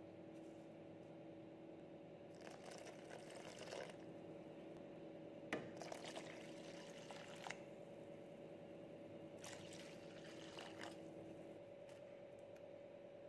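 Water poured from a glass into a pan of coconut milk in three short spells, each lasting one to two seconds, over a faint steady hum.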